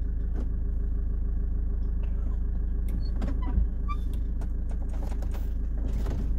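Ford Transit van's engine running steadily, heard from inside the cab, with a few light clicks and a single thump about three and a half seconds in.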